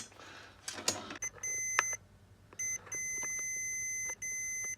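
Continuity tester beeping across a plug fuse: a steady high electronic tone that cuts in about a second in and sounds in stretches with short breaks, showing that the fuse conducts and is good. A sharp click comes right at the start.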